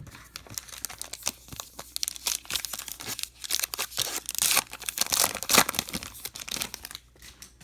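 Baseball card pack wrapper being torn open and crinkled: a dense run of crackling rips and rustles, loudest about four to six seconds in, dying away about a second before the end.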